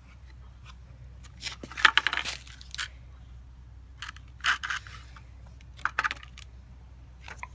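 Paper booklet pages being turned and rustled in a few short bursts, the loudest about two seconds in.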